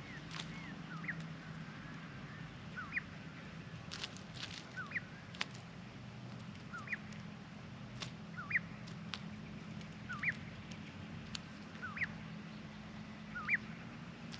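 A bird repeats a short two-note call about every second and a half, a low falling note then a higher rising one, with a few sharp clicks in between.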